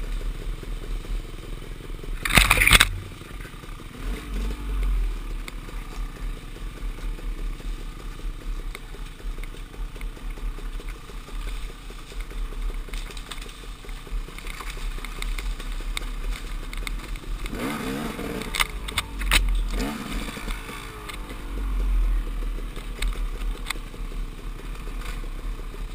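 KTM dirt bike engine running at low speed through woods, picked up by a helmet-mounted camera with a low rumble of wind on the microphone. Loud sharp clatters come about two and a half seconds in and again several times around eighteen to nineteen seconds.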